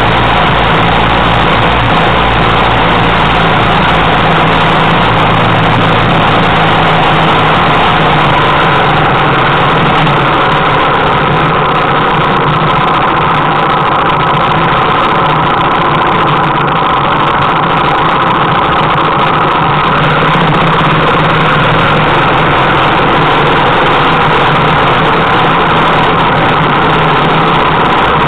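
Trail motorcycle engine running steadily and loud, close to the microphone, with little change in speed.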